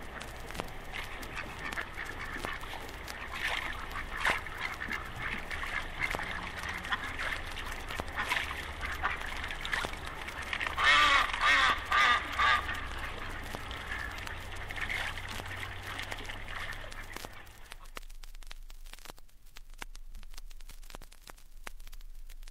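Ducks quacking as a flock, with a loud burst of quacking about halfway through. The quacking stops shortly before the end, leaving only faint record hiss.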